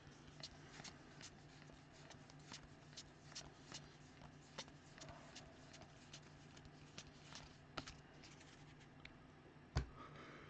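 Faint, soft ticks and rustles of baseball cards being flipped through by hand over a low steady hum, with one sharper knock near the end.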